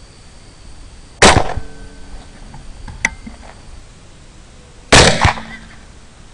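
Two AR-15 rifle shots about four seconds apart, each trailing off in an echo. The second is followed a moment later by another sharp crack, and a faint click falls between the two shots.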